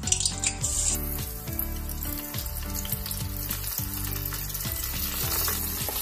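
Cornflour-coated sweet corn kernels deep-frying in hot oil in an iron kadhai, a dense steady sizzle that rises about a second in as the batch goes into the oil.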